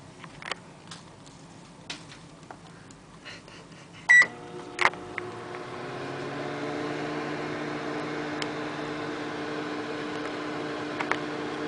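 Microwave oven being started: a few small clicks, a short keypad beep and a click about four seconds in, then the oven's steady running hum comes up and holds.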